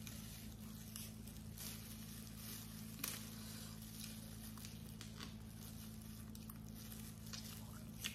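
Faint, scattered clicks and crackles of cooked blue crab shell being pulled apart by gloved hands, with soft chewing, over a steady low hum.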